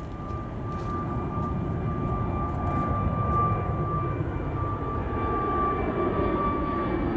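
Jet airliner flying low overhead, its engine noise growing slowly louder, with a steady high whine over a broad rumble.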